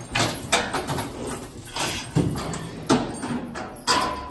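Irregular metal clanks and knocks, about five in all, the last one near the end ringing briefly.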